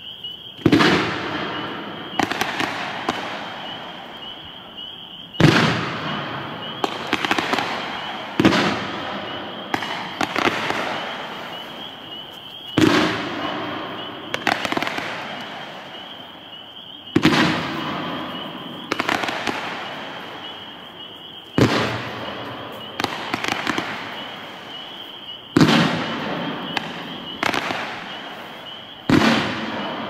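Jinsheng 100-shot 1.3G gold waterfall fireworks cake firing: sharp bangs every one to two seconds, often in quick groups of two or three. Each is followed by a fading crackle of glittering gold stars.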